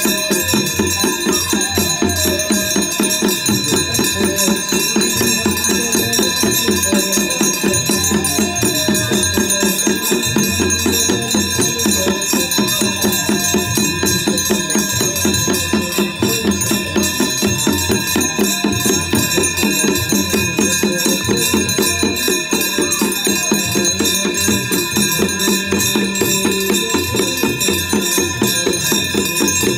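Devotional Ganga aarti music: a voice singing over a fast, steady jingling percussion rhythm, with continuous ringing tones above it.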